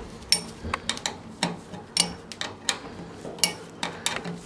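Sharp metallic clicks, about two a second, as a tight fastener on a carburetor is worked loose and unscrewed.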